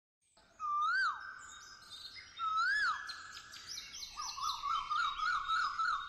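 Bird-like whistling sound effect: two single swooping whistles that rise and fall, then from about four seconds in a rapid warbling trill of short rising chirps, about four a second.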